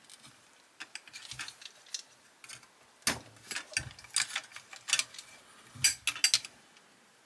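Irregular clicks and light knocks of small plastic and metal parts as a 1:18 die-cast model car is taken apart by hand, its pieces prised loose and handled on the work mat, with a few louder knocks midway and near the end.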